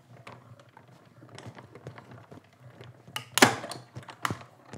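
Clear plastic cutting plates and paper die-cut pieces being handled on a manual die-cutting machine: light clicks and taps, then two louder plastic clacks near the end, the first the loudest.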